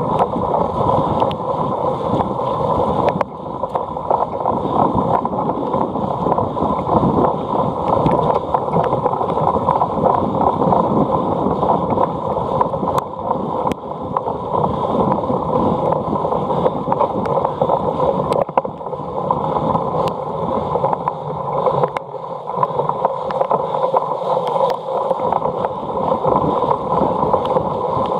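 Wind rushing over the microphone and the rolling rattle of a cyclocross bike being ridden in a race, with scattered sharp clicks.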